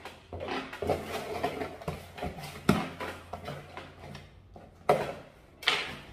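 A cutter blade slitting packing tape along a cardboard shipping box, with irregular scraping and rustling of cardboard. Two louder scrapes near the end as the box flaps are pulled open.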